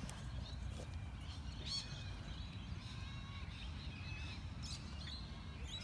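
Outdoor ambience: a steady low wind rumble on the microphone with a few faint, short bird chirps scattered through it.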